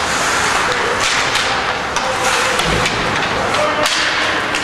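Ice hockey game play: a steady scrape of skates on the ice under sharp cracks of sticks striking the puck, the sharpest near the end, with faint distant shouting.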